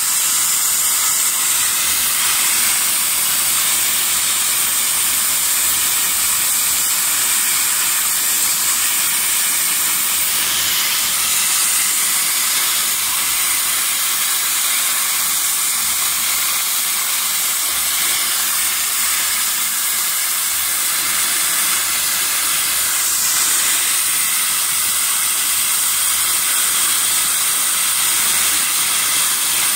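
Steady hiss of high-pressure hot-water jets from a pressure washer's four-nozzle spray head blasting a steel wire rope.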